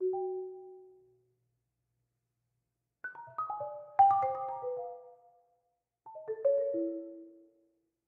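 Adams concert marimba played with four yarn mallets: a two-note chord at the start rings and dies away, then after a pause of about two seconds come two quick falling flurries of notes, each left to ring out.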